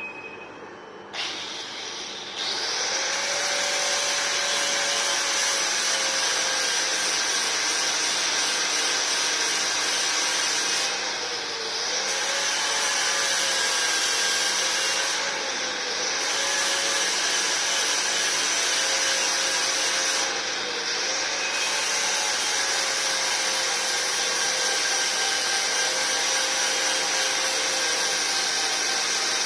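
Angle grinder starting up about a second in, then grinding steadily against a surface to strip it back. Its motor whine dips and recovers three times as the disc is eased off and pressed back on.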